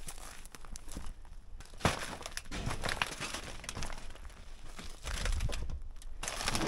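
Footsteps crunching and crackling over burnt debris and rusted sheet metal. The sound is irregular, with sharp clicks and cracks, the loudest a crack about two seconds in.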